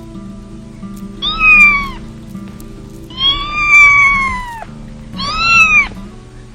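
A kitten meowing three times, the middle meow the longest, each call dropping in pitch at its end, over soft background music.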